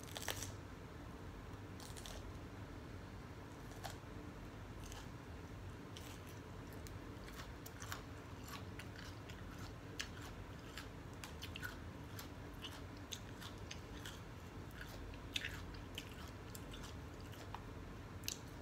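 A bite into a raw sweet mini bell pepper with a sharp crunch just after the start, then faint chewing with scattered small crunches of the crisp pepper.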